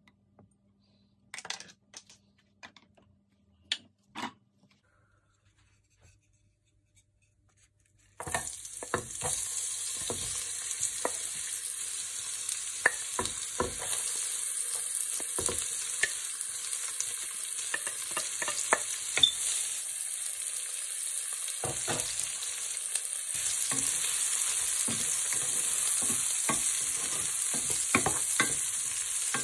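Sliced red onions sizzling in hot vegetable oil in a frying pan, with a wooden spatula tapping and scraping the pan as they are stirred. The sizzle starts suddenly about eight seconds in; before that there are only a few soft knocks.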